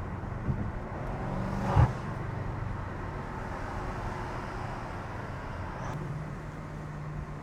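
BMW F90 M5's twin-turbo V8, with front-mount intakes, catless downpipes and a Fi catback exhaust, running under way. There is a short loud burst a little under two seconds in, and the engine note steps up in pitch about six seconds in.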